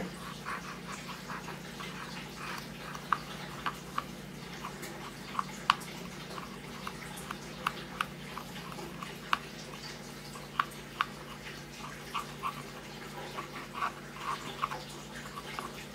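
Alcohol-wetted cotton swab scrubbing old rosin flux off a tiny circuit board: light scratchy rubbing with irregular small clicks, over a faint steady hum.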